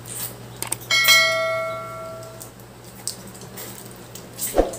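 A piece of tableware struck once, giving a single clear ring about a second in that dies away over about a second and a half. A few short clicks and knocks of eating at the table come around it.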